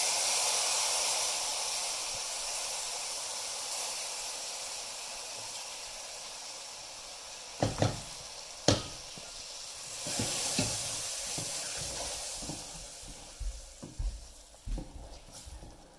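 Hot tadka (spiced oil tempering) sizzling and hissing as it is poured into a pot of kadhi, the sizzle slowly dying away. About eight seconds in come two sharp knocks of the pan and spatula against the pot, a brief new surge of sizzle follows, and near the end there are light knocks as the curry is stirred.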